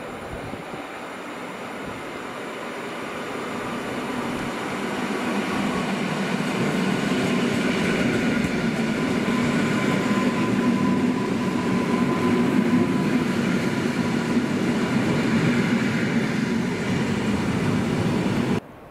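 A train passing on the line, its noise building over the first several seconds and then holding steady, with a faint thin tone near the middle. It cuts off suddenly near the end.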